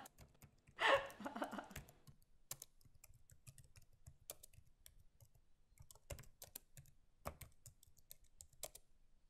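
A brief burst of a person's voice about a second in, then scattered, irregular key clicks of laptop keyboards being typed on.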